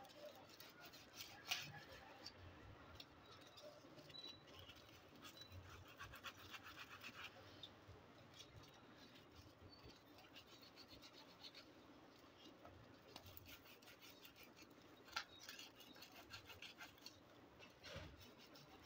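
Faint scratching and rubbing as a lead-acid battery's terminal post is scraped clean by hand, in short runs of quick strokes, with a couple of sharp clicks.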